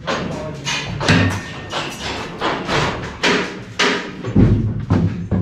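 Euroform concrete form panels knocking and thudding as they are handled and set down, with a heavy thud about four and a half seconds in.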